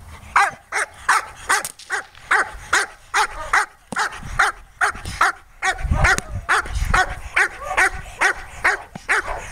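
A 13-month-old dog barking rapidly and steadily at a helper, about three barks a second, as it guards him in protection training.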